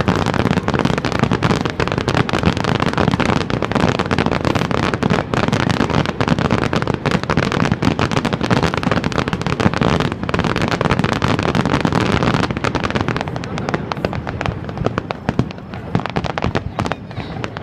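Fireworks bursting in a rapid, dense barrage of bangs and crackles, easing off a little near the end.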